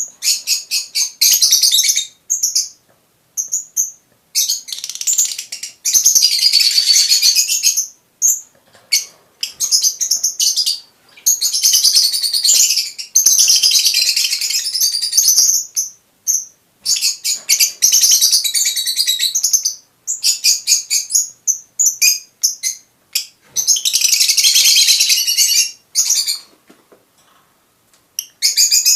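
Fischer's lovebirds chattering: shrill, high chirps in quick trains, alternating with denser chattering phrases of a second or two, broken by short pauses.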